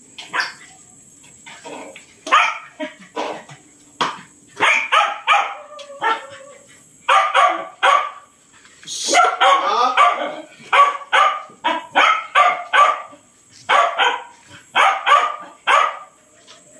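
Dogs barking at feeding time, short sharp barks coming in clusters of two to five with brief pauses between, excited while bowls are being filled for them.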